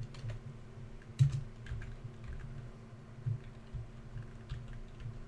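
Typing on a computer keyboard: scattered keystrokes, one louder about a second in, over a faint steady hum.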